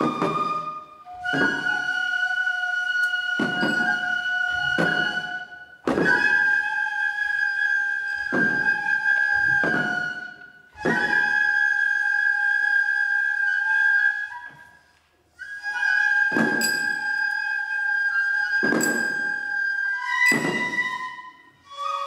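Japanese bamboo flutes playing a slow melody of long held notes that change pitch every few seconds, with single drum strokes landing at irregular gaps of one to three seconds, accompanying a shishimai lion dance.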